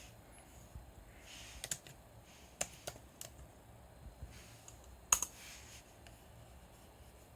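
A handful of faint, irregular clicks and taps on a laptop's keyboard and trackpad, the loudest a sharp click about five seconds in.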